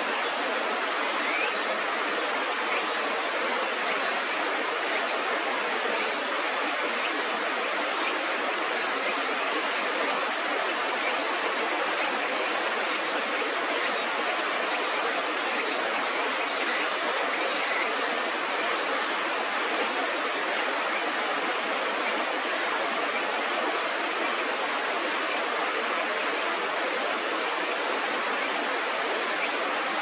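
Steady, even rushing noise of flowing river water, with a thin high steady tone above it.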